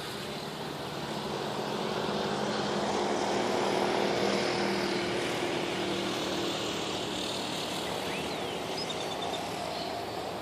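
Outdoor city traffic ambience: a steady rumble of traffic, with one motor vehicle's engine swelling as it passes about four seconds in and then fading. A few faint bird chirps come near the end.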